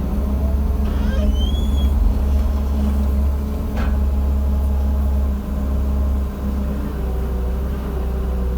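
JCB JS160 excavator's diesel engine running steadily with a heavy low rumble. There is a short high whistle about a second in and a single sharp knock near four seconds.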